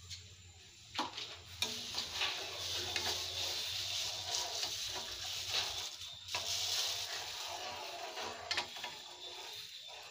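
Thin sugar syrup bubbling in a metal pan on the stove while a ladle stirs it, with a steady hiss-like bubbling that starts about a second in. The ladle knocks against the pan a few times.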